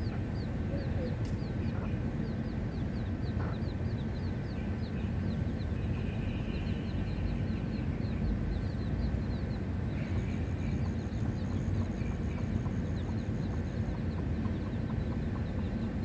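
Chicks peeping, a quick run of short falling peeps about three or four a second, thinning out in the second half. The peeps sit over a steady low background rumble.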